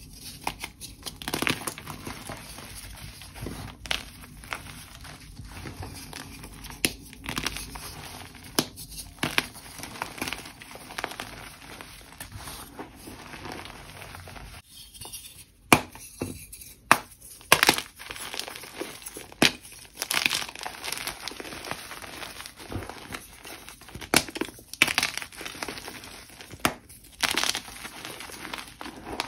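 Dyed gym chalk blocks being crushed and crumbled by hand: a continuous dry crunching and crumbling, broken by frequent sharp snaps as chunks break apart. There is a brief lull about halfway through.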